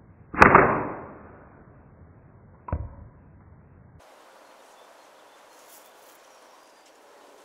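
Slingshot shot dubbed with an added whoosh-and-hit sound effect: a sharp crack with a loud rushing tail that dies away over about a second, then a shorter knock about two seconds later.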